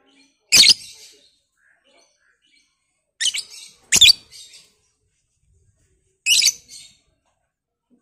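Blue masked lovebird (the 'batman' form) giving four short, sharp, high-pitched calls, spread out, with two of them close together in the middle.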